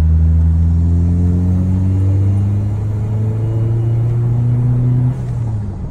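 Turbo-diesel pickup engine fitted with larger aftermarket GTX injectors, heard from inside the cab pulling under acceleration, its drone rising slowly in pitch. A little after five seconds in the sound drops off and dips briefly, then the engine picks up again at a lower pitch.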